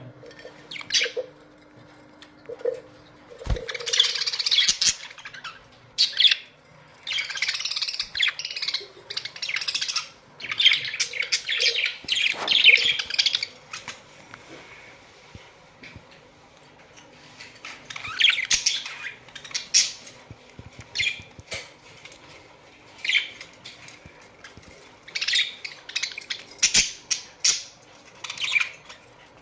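A colony of budgerigars chirping and chattering in irregular bursts, with short pauses between them.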